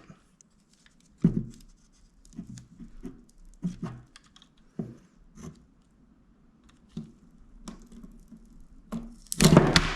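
Small clicks, taps and scrapes of hands working on a laptop's mainboard as the cooling fan's power connector is unplugged and the fan is worked loose. There is a louder crackling scrape about nine and a half seconds in.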